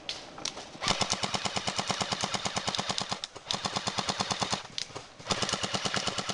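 Airsoft gun firing on full auto: three long bursts in a row, each a fast, even string of sharp clicking shots, more than ten a second.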